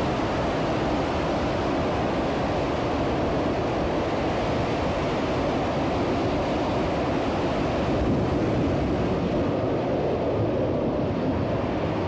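Space Shuttle Main Engine, a liquid-hydrogen/liquid-oxygen rocket engine, firing on a test stand, heard from afar as a steady, loud rushing noise.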